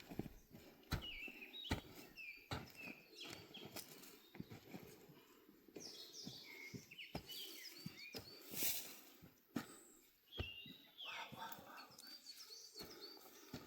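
Small birds chirping repeatedly over a series of irregular dull knocks from a hoe chopping into soil. The knocks come close together in the first few seconds and thin out later.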